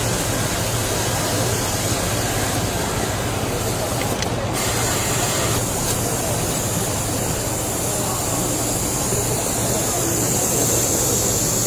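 Steady hum of running machinery with an even hiss over it; a higher hiss joins about four and a half seconds in.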